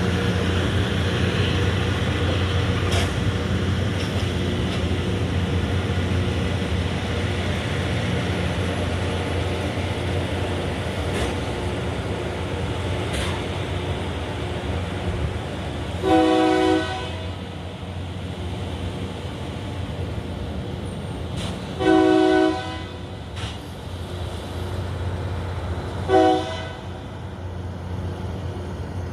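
Loram rail grinder's diesel engine running steadily as it backs up, slowly getting quieter. Its horn sounds three times, two blasts of about a second and a final shorter one, louder than the engine.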